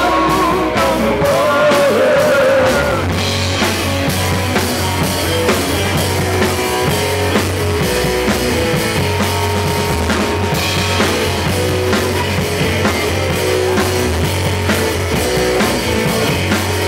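Live rock band playing: electric guitar, electric bass and drum kit, with a lead line of bent notes in the first few seconds over a steady bass and drum beat.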